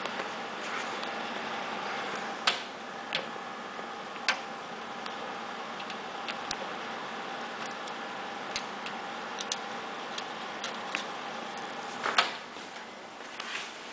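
Desktop PC running, its fans making a steady whir with a faint steady whine, and scattered sharp clicks, the loudest near the end.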